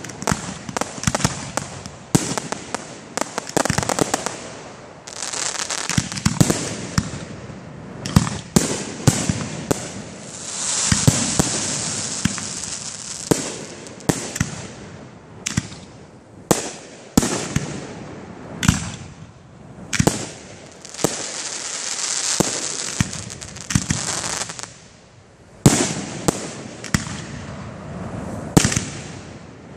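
Aerial firework shells bursting in quick succession, sharp bangs one after another, with two long stretches of hissing crackle. It briefly goes quieter about five seconds from the end, then a loud bang.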